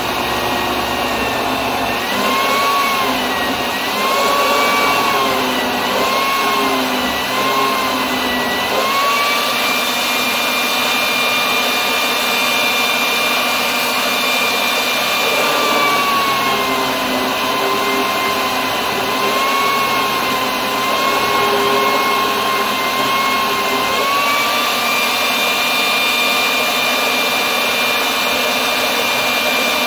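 Electric citrus-juicer attachment on a food processor running, its motor whine wavering and dipping in pitch while an orange half is pressed onto the spinning reamer. The whine rises back to a steady higher pitch when the pressure comes off, about a third of the way in and again near the end.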